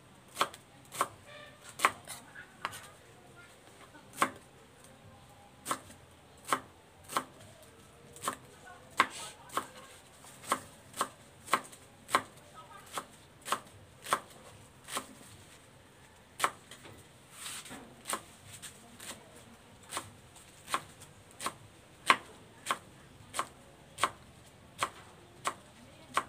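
Kitchen knife chopping leafy greens on a round wooden cutting board: sharp, regular knocks of the blade on the wood, about three strikes every two seconds.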